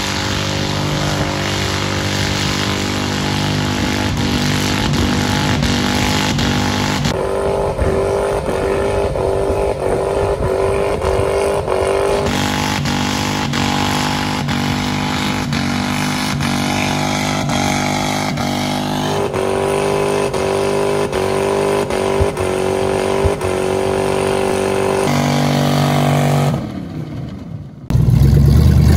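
Pickup truck's V8 engine held at high revs through a burnout, running steadily near the top of its range while the rear tyres spin. The sound switches abruptly several times between takes.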